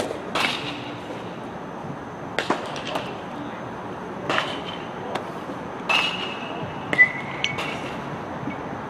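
A pitched baseball popping into a catcher's leather mitt about half a second in. Several more sharp knocks with short ringing clinks follow over the next seconds, the loudest about seven seconds in.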